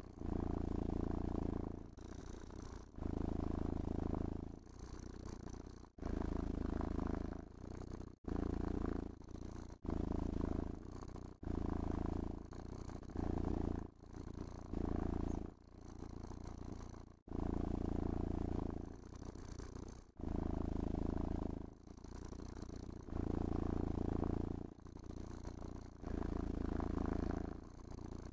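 Domestic cat purring close to the microphone while being brushed, a low rumbling purr that swells and eases about every two seconds as the cat breathes in and out.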